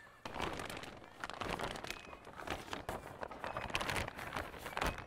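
Clear 6 mil polyethylene greenhouse film rustling and crinkling as it is dragged and pulled over the metal hoops, with many sharp crackles and a louder crackle near the end.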